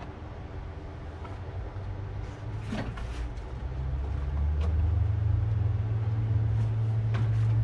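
A plastic liftgate trim panel being pressed into place, giving a few sharp clicks and knocks. A low, steady motor hum swells about halfway through and stays loudest.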